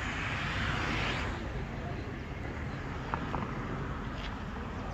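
Steady outdoor background noise, with a hiss that swells and fades in the first second and a half and a few faint clicks about three seconds in.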